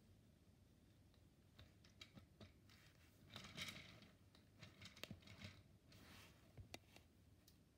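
Faint clicks and plastic rattling of Lego Technic gears and beams as the hand crank is turned and the model lifts into robot shape, with a denser run of rattling about three and a half seconds in.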